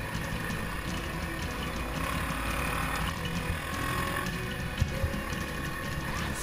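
Kawasaki KDX250 two-stroke dirt bike engine running under way, with wind noise on the camera microphone and a sharp knock about three-quarters of the way through.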